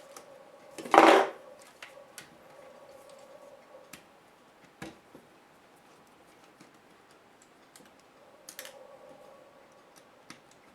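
Plastic and metal laptop parts being handled during disassembly: scattered light clicks and taps, with a loud short clatter about a second in and a smaller one near the end, over a faint steady hum.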